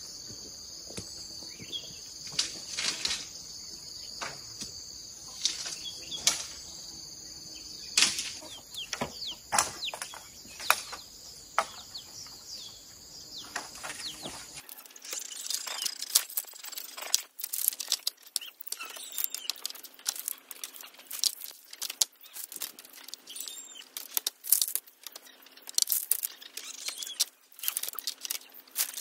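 A steady, high insect chorus with scattered knocks and footsteps. About halfway through it gives way to a rapid, irregular run of clicks, rustles and knocks as thin bamboo poles are handled and set into a fence.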